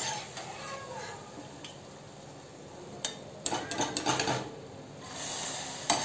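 A metal slotted spoon clinks and scrapes against an iron kadhai while fried boondi are scooped out of hot ghee and stirred, with a quick run of clinks a little past halfway. A soft sizzle of the frying ghee comes and goes.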